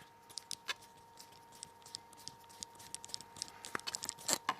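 Small, irregular clicks and ticks of a precision screwdriver working the tiny screws in a Nokia N8's frame, over a faint steady tone.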